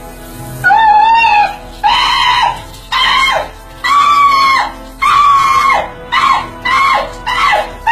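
A man's high-pitched yelps and shrieks, one after another. Each lasts about half a second to a second and drops in pitch at the end, and they come shorter and quicker near the end: cries of shock at cold shower water.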